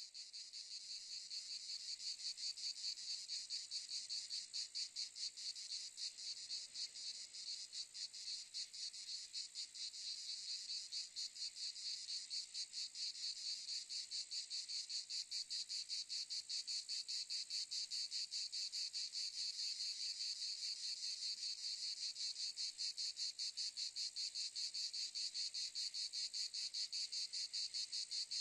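Insect song: a continuous high-pitched chirring trill of rapid, even pulses. It swells up over the first couple of seconds and then holds steady.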